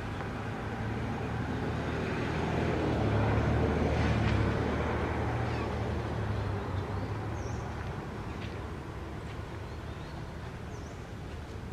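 A motor vehicle passing out of sight: a low engine drone that swells to its loudest about three to four seconds in, then slowly fades away.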